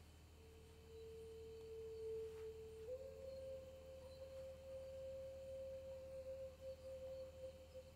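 A faint, single sustained pure tone that starts about half a second in, steps up slightly in pitch about three seconds in, and then holds steady.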